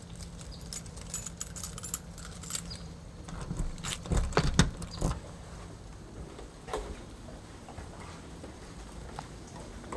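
Keys jangling on a ring and clicking in a front-door deadbolt as it is locked. The loudest cluster of clicks comes about four to five seconds in.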